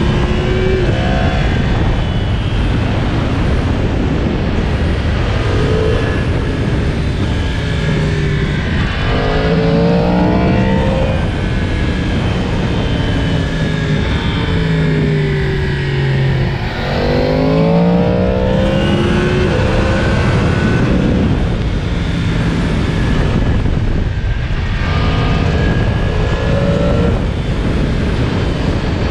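Yamaha MT-10's crossplane inline-four engine on its stock exhaust while the bike is ridden. The revs climb in pitch several times, most clearly about a third of the way in and again just past the middle, and fall back as it slows, over a constant low noise.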